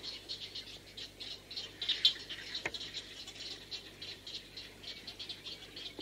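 Kōtuku (white heron, great egret) calling: a rapid, irregular, high-pitched ticking chatter, with one sharp click about two seconds in.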